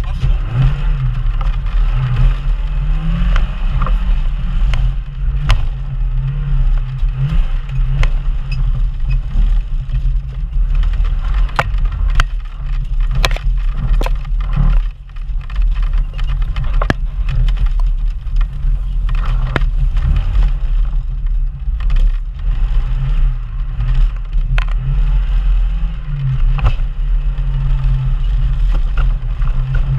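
Engine of a 4x4 off-roader labouring on and off the throttle through a muddy jeep-trial course, picked up close from the bonnet. Frequent sharp knocks and clatters come from the body and suspension and from brush striking the vehicle.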